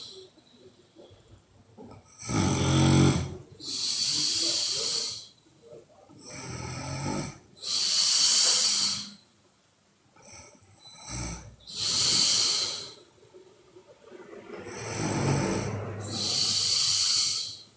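A sleeping woman snoring: about four slow breaths, each a low snore followed by a longer hissing breath, with short quiet gaps between them.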